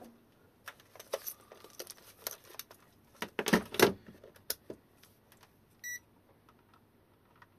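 Clicks and rattles of hard plastic and wiring being handled as multimeter test probes are brought to an opened e-bike battery pack, the loudest cluster about three and a half seconds in. Near six seconds, one short, high electronic beep.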